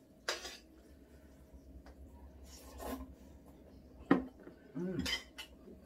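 Eating sounds: chopsticks clicking against bowls as jjajang instant noodles are lifted and eaten, with a few sharp clicks, the sharpest about four seconds in.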